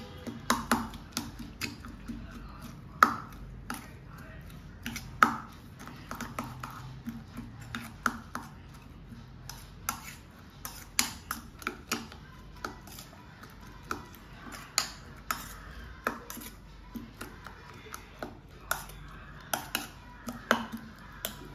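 A steel spoon clinking against the inside of a small stainless steel tumbler as beaten eggs with chopped onion and herbs are stirred: irregular sharp clinks, one or two a second, with two louder knocks about three and five seconds in.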